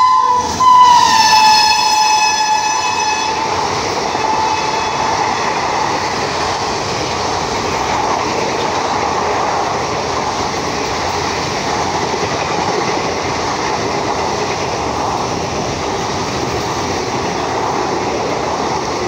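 Horn of a WAP-5 electric locomotive sounding as the express comes through at speed. It drops in pitch about a second and a half in as the locomotive passes and fades out by about five seconds. Then come the steady rush and rattle of the coaches racing past, with wheels clattering over the rail joints.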